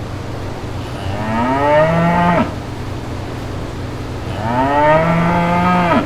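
A cow mooing twice, each moo about a second and a half long, rising in pitch at the start and cutting off sharply, over a steady low hum.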